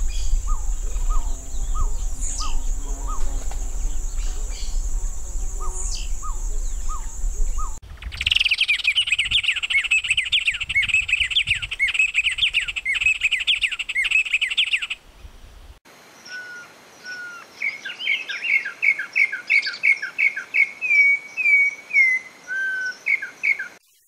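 Three bird recordings in turn. First, a long-tailed ground-dove's short low notes, repeated at an even pace over a low rumble. From about eight seconds, a white-rumped tanager's fast, dense chattering song. From about sixteen seconds, another bird's clear whistled notes, repeated quickly.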